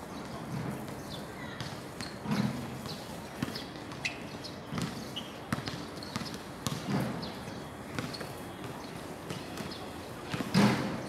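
Basketball bouncing on an outdoor hard court: separate thuds about two seconds apart, the loudest near the end.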